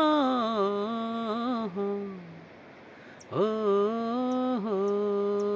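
A solo voice singing a wordless folk-style melody with vibrato: one phrase falls away and fades, then after a short pause a second phrase swoops up and is held.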